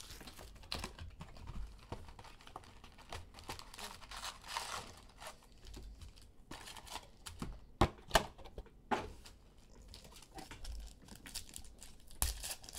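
Basketball trading-card pack wrappers being crinkled and torn open, with cards handled and tapped: an irregular rustle broken by a few sharp clicks about two-thirds of the way in.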